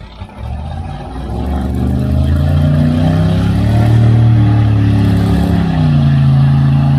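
A mud truck's engine revving up over the first couple of seconds and held at high revs as the truck churns through a deep mud hole, its wheels throwing mud. The revs ease slightly about six seconds in.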